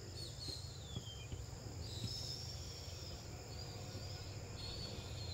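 Steady high-pitched insect drone, crickets, with several short high chirps that glide in pitch over it, one falling about half a second in and a longer one about two seconds in.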